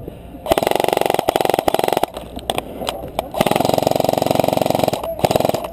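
Airsoft electric rifle firing on full auto: a rapid buzzing burst of about a second and a half, a few single shots, then a second burst of similar length and two more single shots near the end.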